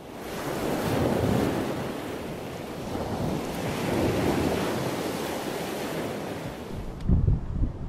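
Ocean surf washing in, swelling twice and cutting off suddenly about seven seconds in. Then wind buffets the microphone.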